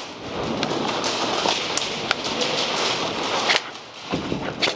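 Scattered airsoft gunfire in an indoor arena: irregular sharp cracks and snaps of shots and BB impacts over a steady noisy rustle. The cracks thin out after about three and a half seconds.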